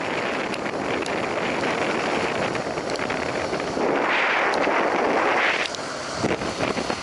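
Wind rushing over the microphone of a camera on a motorcycle riding at highway speed, with road and engine noise underneath. It swells louder about four seconds in and drops off suddenly near six seconds.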